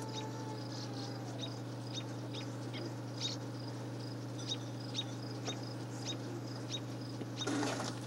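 A steady low electrical-sounding hum, with short high chirps repeating about twice a second over it.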